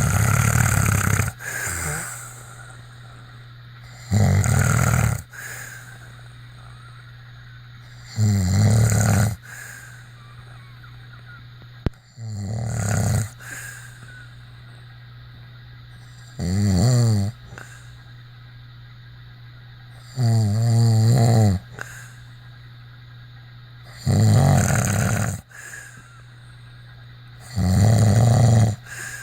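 A person snoring, one snore about every four seconds, each lasting about a second, over a steady low hum.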